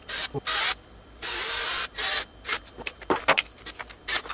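Cordless drill-driver running in several short bursts, driving screws into a plastic block, then a run of clicks and knocks as the parts are handled.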